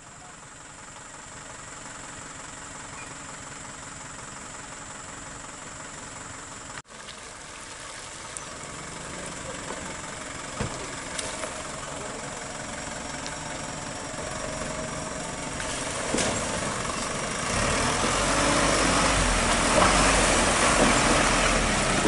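Isuzu box truck's diesel engine running as the truck drives through mud, growing steadily louder as it approaches and is loudest as it passes close by, with a rushing noise on top near the end.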